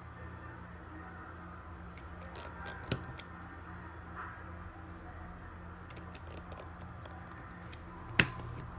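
Small sharp clicks and taps of tools and parts being handled while reassembling an iPhone 6s, with a louder single click near the end, over a steady low electrical hum.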